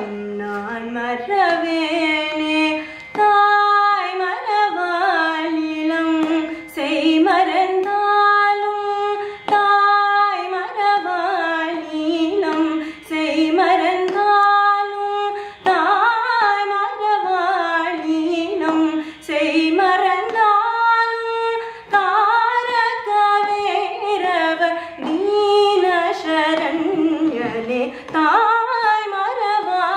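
A woman singing a Carnatic song in raga Shanmukhapriya, holding long notes and sliding and ornamenting between pitches, with short pauses for breath.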